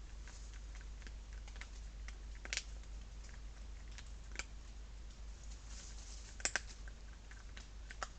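Irregular small sharp clicks and ticks, a few louder ones, the last a close pair, over a steady low hum.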